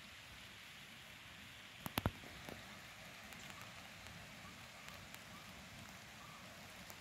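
Faint, steady outdoor hiss of the kind heard in light rain. About two seconds in come three quick sharp clicks close together, followed by a softer one.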